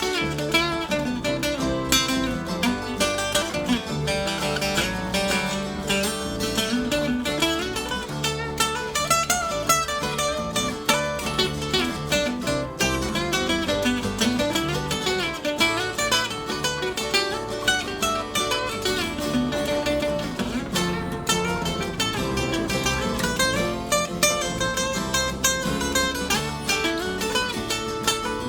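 Instrumental jam by an acoustic string band: picked acoustic guitar and mandolin runs over strummed rhythm guitar and bass, with no singing.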